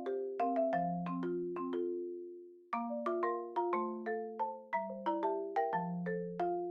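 Background music: a melody of quick struck mallet-percussion notes, each ringing briefly, with a short break about two seconds in before the tune resumes.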